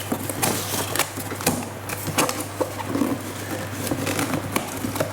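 Cardboard boxes rustling, scraping and knocking, with irregular clicks and taps at uneven spacing, over a steady low hum.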